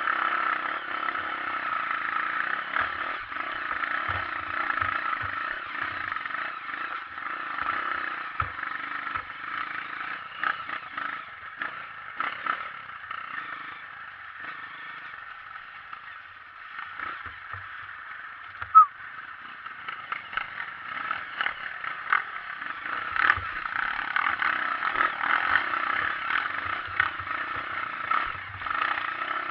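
Honda CRF230 trail bike's single-cylinder four-stroke engine running under changing throttle, with scattered knocks and rattles from rough ground. It eases off in the middle and picks up again, with one sharp click about nineteen seconds in.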